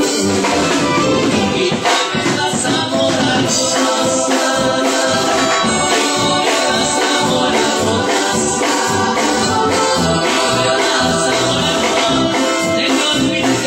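Live regional Mexican group music at dance volume: a steady beat on bass drum and percussion under keyboard or accordion and a singing voice.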